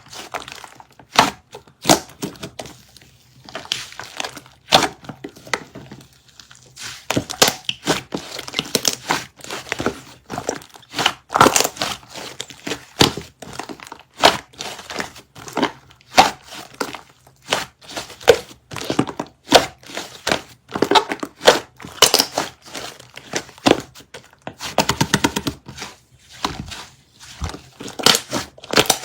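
White sticky slime being pressed, squeezed and pulled apart by hand, making irregular clusters of sharp sticky clicks, crackles and tearing pops.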